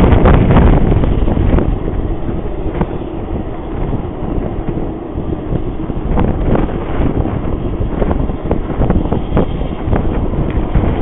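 Wind buffeting the microphone in irregular gusts over a continuous low rumble, loudest at the start and easing off after about two seconds.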